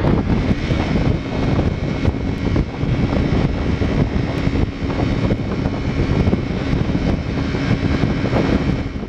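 Motorcycle engine running at a steady cruising speed, mixed with heavy wind rush on the bike-mounted camera's microphone.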